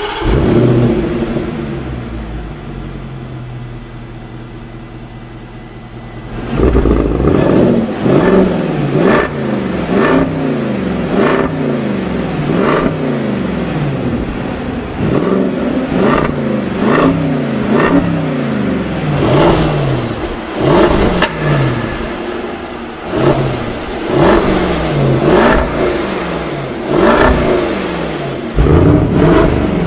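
Land Rover Defender 90's 5.0-litre supercharged V8 idling just after starting, its idle easing down. About six seconds in it is blipped again and again, roughly once a second, each rev rising and falling with sharp cracks from the exhaust as it drops back, and near the end a longer rev is held.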